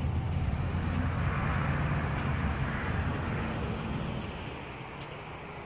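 A motor vehicle's engine running with a rushing road noise, which swells and then fades away after about four seconds, as when a vehicle passes.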